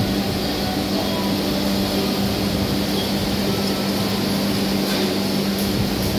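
Steady mechanical hum of a running machine, with one strong low tone and an even noise over it.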